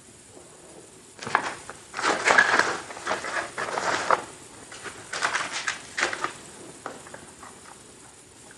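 Close-miked crunching of Halloween Oreo cookies being bitten and chewed, in two bouts of crisp crackly crunches with a quiet pause between.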